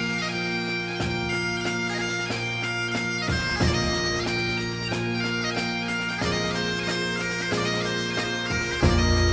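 Bagpipe music: a tune played over steady held drones, with a deeper low tone swelling in near the end.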